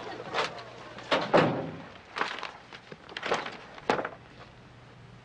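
A heavy thump about a second in, with a few lighter knocks, then paper rustling as a sheaf of papers is handled and leafed through.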